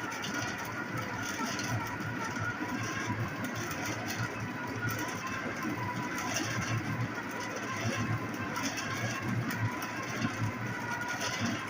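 A power tool running steadily, with a faint steady whine over a low pulsing hum.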